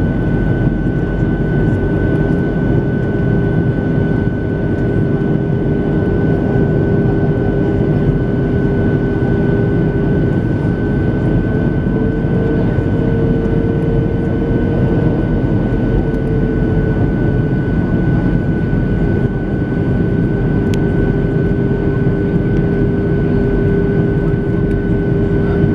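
Jet airliner engine and airflow noise heard inside the cabin, steady and loud. A steady hum rises slightly in pitch for a few seconds about halfway through, then settles back, over a thin high whine.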